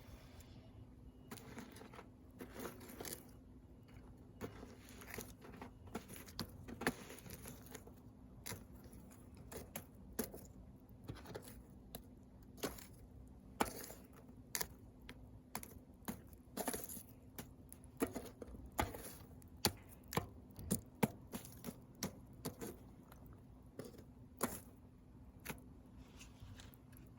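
Wood fire crackling, with irregular sharp pops and snaps throughout.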